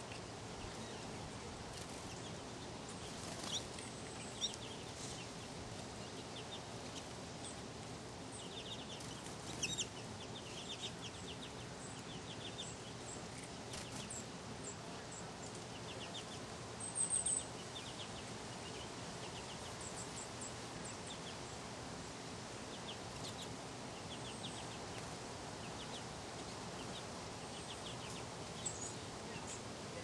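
Small pet finches chirping: short high chirps scattered throughout, some coming in quick runs, the loudest cluster a little past halfway, over a steady low background noise.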